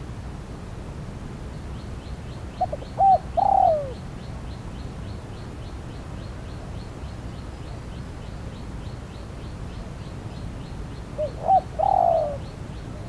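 Spotted dove cooing twice, about eight seconds apart, each phrase two short notes then a longer falling one. A faint high ticking, about four a second, runs behind it.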